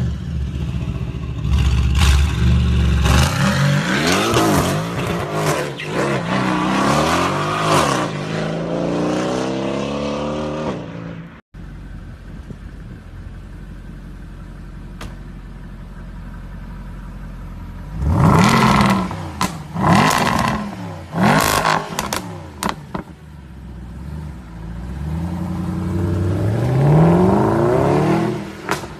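Mercedes-AMG V8 engines in three short clips. A C63 coupe revs hard and repeatedly, its pitch rising and falling, for about ten seconds. After a sudden cut an SLS AMG idles with a low drone, is blipped sharply several times, and near the end an engine revs up in one long rising sweep.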